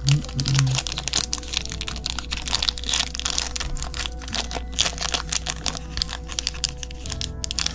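Foil trading-card booster pack wrapper crinkling and crackling as it is handled, a dense run of crackles with background music underneath.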